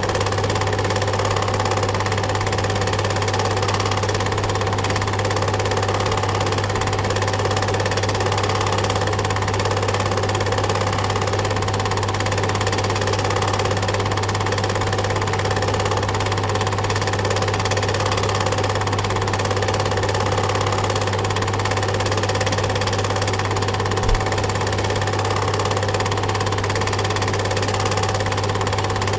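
Steady running whirr and hum of a film projector's motor and mechanism, with one brief low thump a few seconds before the end.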